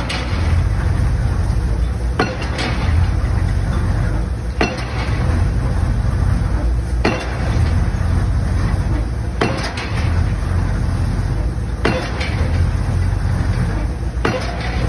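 Pile-driving hammer striking the top of a precast concrete pile, one sharp blow about every two and a half seconds, over the steady low rumble of the rig's diesel engine.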